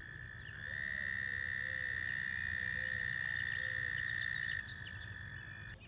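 Frogs calling: one long, steady, high-pitched trill, loud from about half a second in until near the end, over a fainter continuous trill from other frogs.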